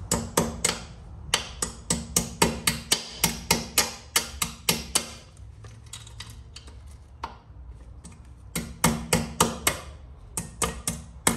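Sharp metal taps as a cotter pin is worked through the rear axle nut and axle of a Kawasaki ZX-10R to lock the nut. The taps come about four a second in two runs, with a pause of a few seconds in the middle.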